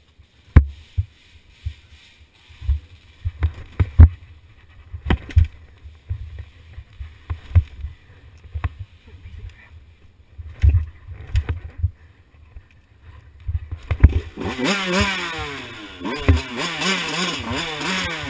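A series of irregular knocks and thumps for about fourteen seconds, then the KTM 85 SX's big-bore-kitted two-stroke engine runs and is revved up and down unevenly.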